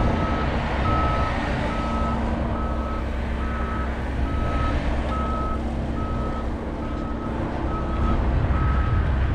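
Vehicle reversing alarm beeping at an even pace, about one and a half beeps a second, over low engine noise.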